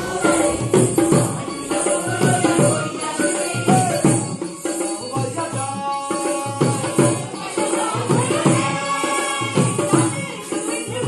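Music with a steady beat of hand percussion and a melody line over it.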